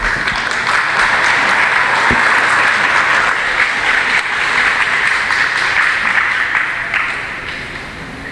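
Audience applauding, a dense patter of many hands clapping that starts abruptly and fades out near the end.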